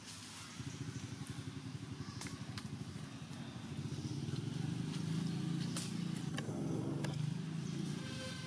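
A motor vehicle engine running as a low, pulsing rumble that grows louder through the middle and eases off near the end, with a few sharp clicks over it.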